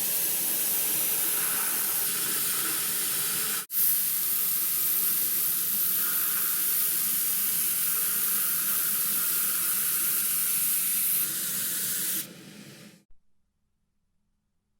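A steady spraying hiss, broken for an instant about four seconds in and then resuming, which stops about twelve seconds in.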